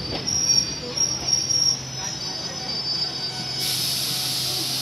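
Train wheels squealing on the rails, high and shrill, loudest in the first two seconds over a steady low hum. About three and a half seconds in, a steady hiss starts suddenly and carries on.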